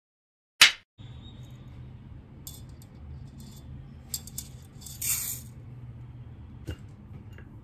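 A single loud clapperboard snap, followed by a steady low hum of room tone. About four seconds in come a few light clinks, then a brief rattling patter as dry red lentils (masoor dal) are tipped from a bowl into water in a stainless-steel pressure cooker.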